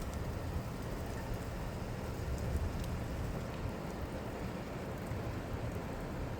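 Steady rain falling: a continuous hiss with a few faint drop ticks, over a low rumble.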